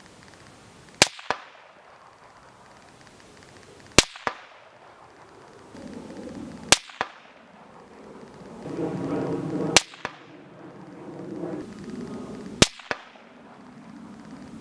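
Five rifle shots fired from the bench, about three seconds apart, each followed a fraction of a second later by a sharp echo. A low background rumble rises between the shots in the middle.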